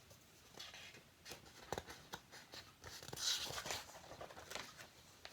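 A picture book's paper page being handled and turned: soft rustling with a few light clicks, and a brief louder rustle about three seconds in.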